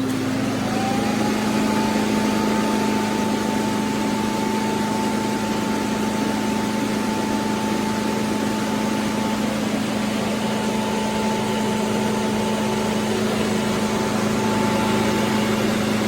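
Suction motor of a Shark PowerDetect robot vacuum system running loud and steady: a rushing air noise under a low hum, with a whine that climbs in pitch over the first second or two and then holds.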